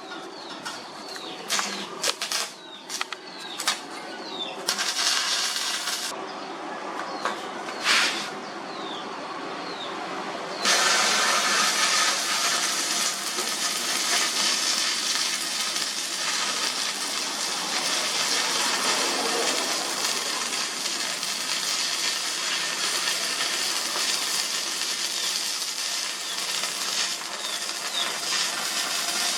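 Electric arc welding on steel. For about ten seconds there are irregular crackles and short sputtering bursts as the arc is struck and broken, then a steady crackling hiss as a continuous weld bead is laid.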